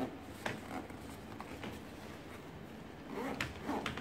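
Scattered short rustles and knocks as a massage-chair seat cushion in its leather cover is handled and its hose is pulled through the cover, with a quick cluster of them near the end.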